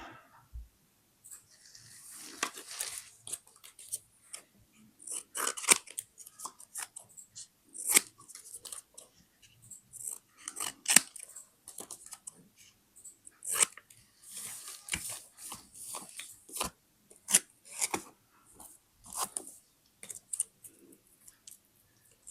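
Scissors cutting paper in a run of irregular snips, with paper rustling between the cuts.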